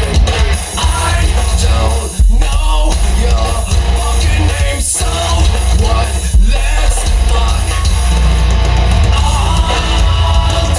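Loud rock music with singing played through a home stereo system, with heavy bass.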